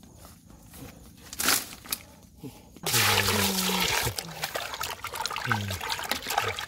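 Water sloshing and splashing in a metal cooking pot as hands wash and rub pieces of scaled fish, starting suddenly about three seconds in.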